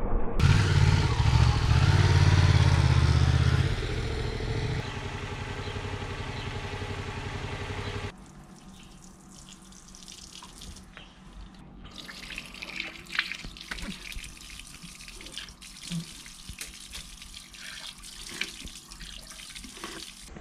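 Yamaha MT-07 parallel-twin engine running, loudest for the first four seconds. About eight seconds in it gives way to water running from a fountain tap into a stone trough as a plastic bottle is filled, with small splashes and clicks.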